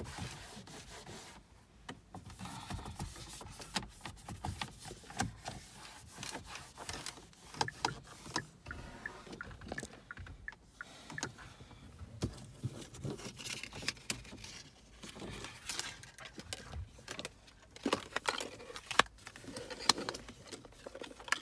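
Cloth rubbing and scraping over the car's plastic dashboard and center console, with irregular small clicks and knocks of handling.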